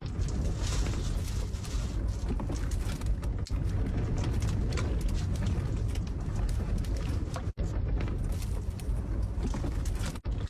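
Strong wind rumbling, heard from inside a small camper van, with occasional light clicks and knocks.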